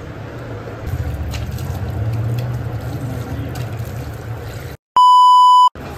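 Water splashing and trickling as a face is rinsed by hand over a basin of water, over a low steady hum. Near the end a loud electronic beep, one steady high tone, cuts in for about a second.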